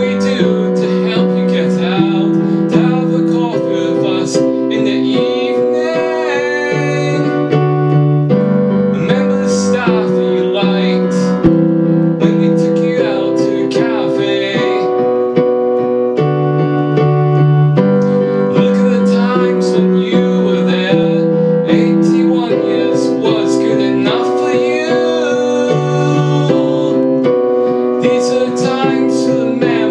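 A man singing his own song while playing piano chords on an electric keyboard. The voice comes in phrases of a few seconds with short gaps where only the keyboard carries on.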